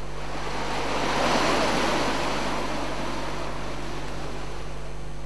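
Sea waves breaking and washing around a rock in the surf, one wash swelling to a peak about a second and a half in and then slowly easing off.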